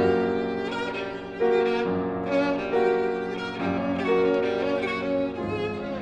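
Violin and piano duet: the violin plays a line of long held notes, a new one about every second, over the piano.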